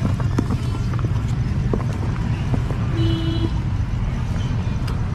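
Rhesus macaques rummaging in a cardboard box of pomegranates: scattered clicks and knocks of fruit and cardboard over a steady low rumble. A brief squeak comes about three seconds in.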